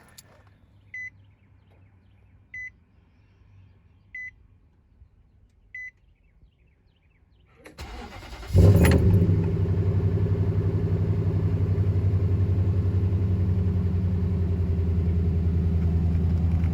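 Four short beeps about a second and a half apart. Then the 2006 Nissan Titan's 5.6-litre V8 cranks briefly, catches about eight and a half seconds in, and settles into a steady idle.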